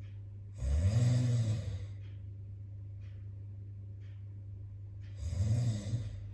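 A man's put-on snoring, done as a prank: two loud snores about four seconds apart, each lasting about a second.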